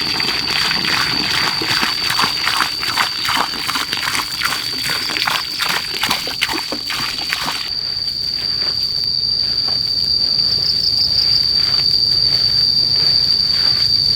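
An insect's steady, high, unbroken trill. For about the first half it is joined by a fast run of irregular scraping and rustling knocks, which stop about eight seconds in.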